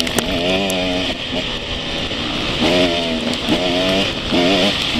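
Enduro motorcycle engine ridden off-road, revving up and down in short surges as the throttle is worked, over a steady hiss.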